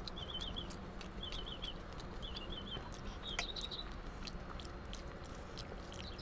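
Quiet sounds of eating rice by hand: fingers mixing food and chewing, with scattered small clicks. A bird sings short wavering chirp phrases about once a second, four times in the first few seconds.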